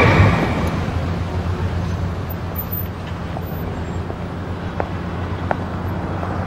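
Street traffic with a car engine idling as a steady low hum, and a couple of faint clicks about five seconds in.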